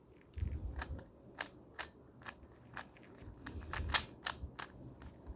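3×3 Rubik's cube being turned quickly by hand: irregular sharp plastic clicks as the layers snap round, about two a second, over a low rumble of handling.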